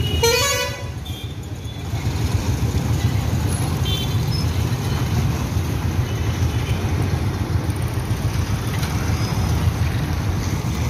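Street traffic: motorcycles and other vehicles running past, a steady engine and road rumble, with a short rising pitched sound right at the start.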